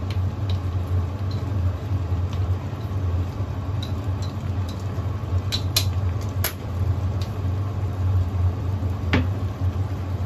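A wok of beef and rice-noodle soup boiling, over a steady low mechanical hum from the kitchen. A few sharp ticks come through, the strongest about six and a half seconds and nine seconds in.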